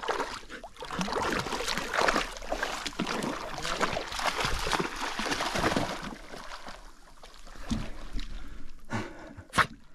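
A golden retriever and another dog wading through shallow lake water, their legs splashing and sloshing, busiest in the first six seconds and quieter after. A short, sharp sound stands out near the end.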